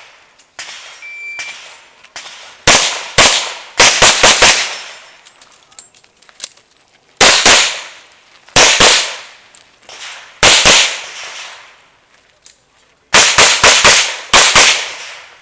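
A shot timer gives a short beep about a second in, then a revolver fires in three quick strings of shots, with gaps of about two seconds between strings. Each shot is a sharp crack with a short echoing tail.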